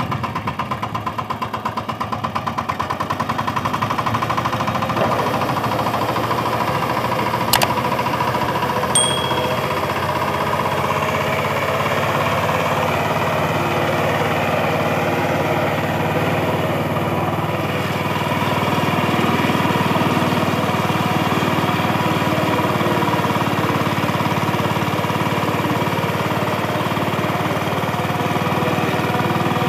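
VST Shakti 130 DI power tiller's single-cylinder diesel engine running steadily under load as its rotary tines puddle flooded paddy mud; it gets a little louder about four seconds in. A single sharp click is heard about seven and a half seconds in.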